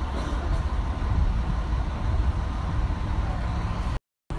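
City street noise: a steady low rumble of traffic, cutting out for a moment near the end.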